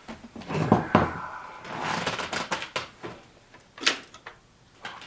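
Xerox Memorywriter 6020 electronic typewriter's mechanism knocking and clattering: a few heavy knocks, then a short rattling run and scattered clicks. The knocking comes from the ribbon having popped up out of place.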